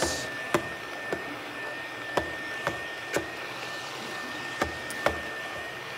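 Stick blender running in a pot of tomato soup, a steady motor whine. A few light knocks come through as the blender is worked up and down in the stainless steel pot.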